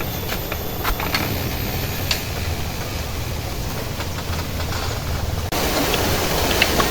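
Wind buffeting the microphone: a steady low rumble with scattered small clicks, turning abruptly into a brighter hiss about five and a half seconds in.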